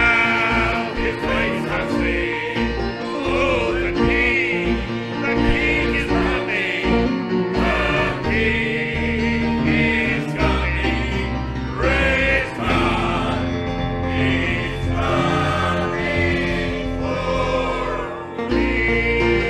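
Church gospel singing with vibrato voices over a steady instrumental accompaniment.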